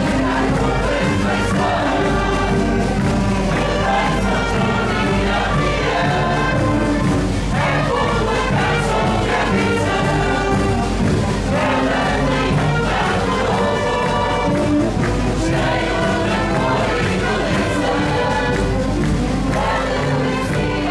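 A marcha popular song: a large group singing together in chorus over its accompanying live band.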